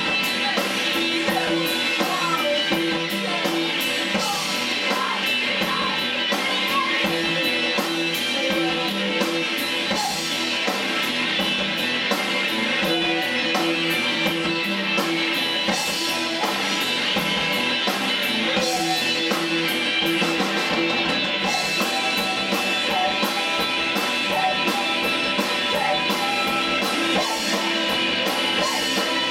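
A rock band playing live: electric guitars, bass guitar and drum kit, with a woman singing lead vocals.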